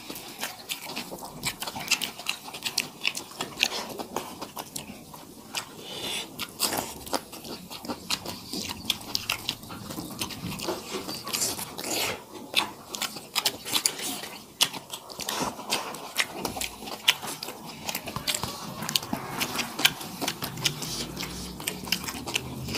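Two people eating rice and curry with their hands, chewing with mouth smacks: a dense, irregular run of small clicks with no pauses.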